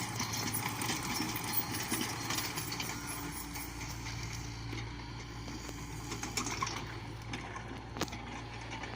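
Komatsu PC70-8 excavator running at a steady engine hum, with a continual clatter of metal clanks and rattles from the machine working, and a sharper knock about eight seconds in.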